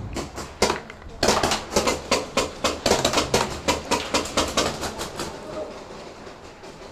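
Paintball markers firing in quick succession, about three or four sharp pops a second, that thin out and fade over the last couple of seconds.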